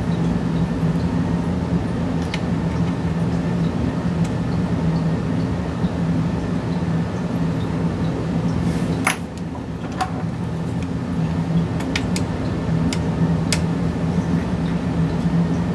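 Steady low machine hum with a few even pitched lines, like fans running, with scattered small sharp clicks and taps of a graphics card and small tools being handled while its screws are sought and undone.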